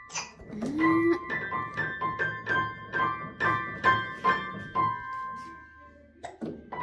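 A quick run of bright, piano-like keyboard notes, about three a second, ending on one held note about five seconds in. A short rising voice sound comes about a second in.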